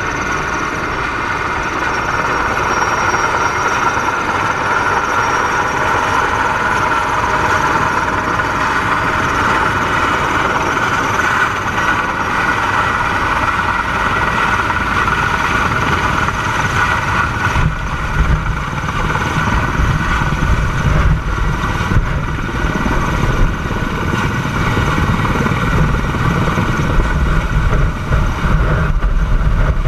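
Sikorsky Skycrane heavy-lift helicopter flying in and hovering closer overhead with a steel tower section slung beneath it. Its turbine whine and rotor noise run steadily, and the low rotor beat grows heavier and louder in the second half as it comes overhead.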